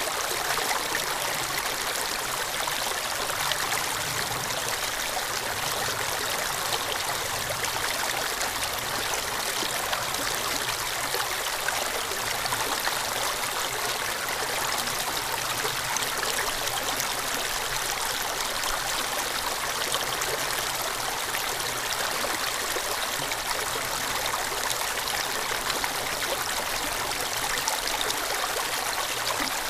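Shallow stream water running steadily over rocks.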